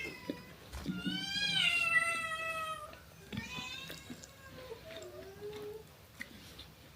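A cat meowing twice: one long meow about a second in that rises and then falls in pitch, and a shorter meow a couple of seconds later.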